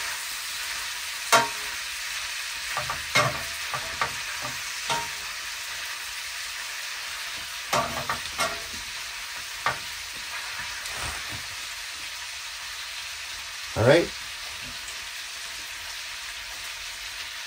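Bacon and mini sausages sizzling in a pan, with scattered clicks and scrapes of a utensil against the pan as they are turned. Near the end a short rising squeak is the loudest sound.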